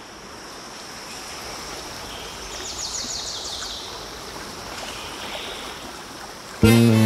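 Rushing water fading in, with a steady high insect-like hum and a brief run of quick high chirps about three seconds in. Loud music starts abruptly near the end.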